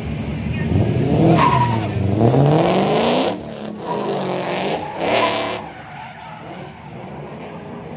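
BMW E36 drift car engine revving hard in two bursts, its pitch dipping and then climbing in the first. After about five and a half seconds the sound falls to a much quieter, duller background.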